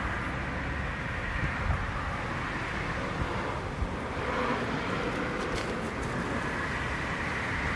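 Steady outdoor background noise, an even hiss with a few faint low bumps.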